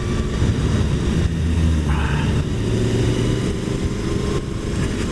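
Strong wind rushing over the microphone of a motorcycle-mounted action camera, with the motorcycle's engine running steadily at road speed underneath.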